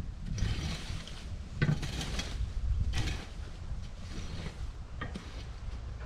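Intermittent metallic scrapes and knocks as a long bar is worked at the end of a portable sawmill's track, with one sharper knock just under two seconds in. Wind rumbles on the microphone.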